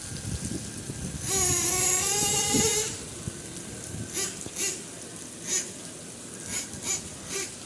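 HoBao MT radio-controlled monster truck's motor whining under throttle: one long burst of about a second and a half, then several short throttle blips. Rain hisses throughout.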